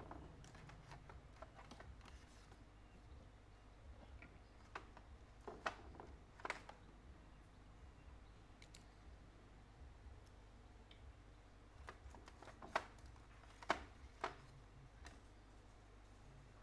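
Sparse, faint clicks and taps of small repair tools and phone parts being handled, with a few sharper ticks about a third of the way in and again past two-thirds, over a low steady hum.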